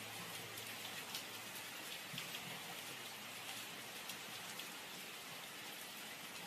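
Steady rain falling on a puddle and wet pavement, a constant hiss with individual drops ticking through it.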